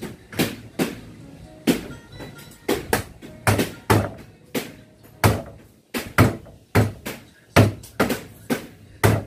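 Hammer blows knocking an aluminium sliding-window frame rail down onto the edge of a glass pane: sharp knocks with a dull thud, irregular, one to two a second.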